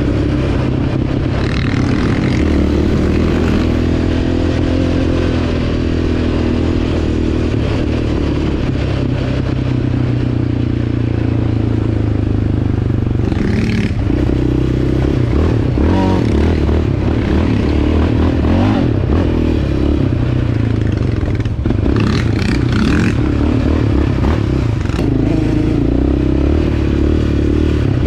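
Yamaha Raptor 700R SE's single-cylinder four-stroke engine running as the quad rides a dirt trail, its pitch rising and falling with the throttle, with loose gravel scraping and clattering under the tyres.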